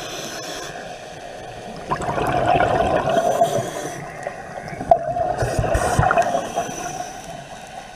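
Water gurgling and bubbling, swelling louder twice: once about two seconds in and again about five seconds in.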